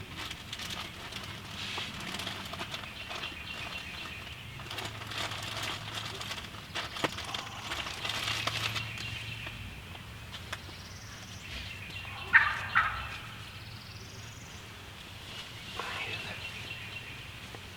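Wild turkey gobbler gobbling, the loudest being two sharp calls close together about twelve seconds in.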